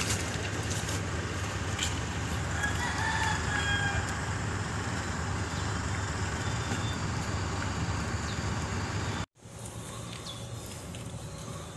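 Steady outdoor background noise with a low hum, and a rooster crowing faintly about three seconds in. About nine seconds in, the sound cuts out abruptly and comes back as quieter ambience.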